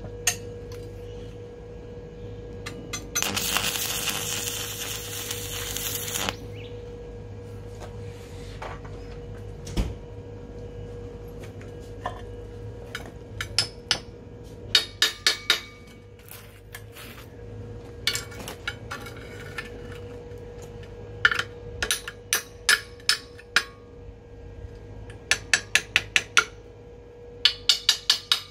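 Metal tools and stainless parts clinking and tapping in quick runs of sharp knocks, over a steady hum. A loud hissing rush of about three seconds comes a few seconds in.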